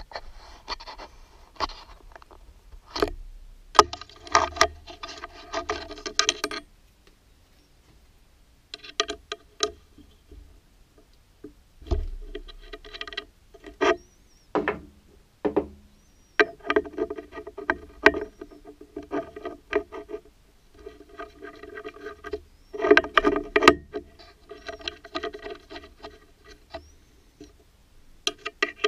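Intermittent metallic clinking and rattling from the lathe's steel tool post and hand tools being turned and handled, with a ringing metal tone in each clatter. There are short quiet pauses between the clatters, and no motor running.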